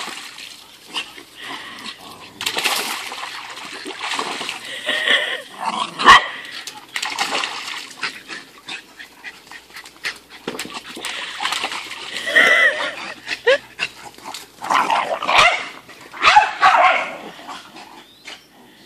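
Irish red setter puppy and another puppy playing at a paddling pool: water splashing and scattered short barks and yips, with a sharp knock about six seconds in.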